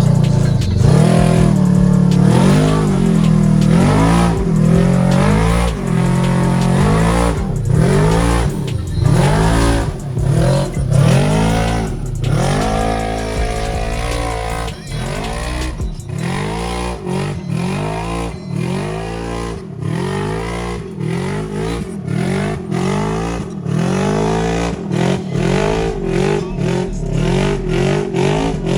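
Side-by-side UTV engine revving up and down over and over as it is driven, its pitch rising and falling every second or two.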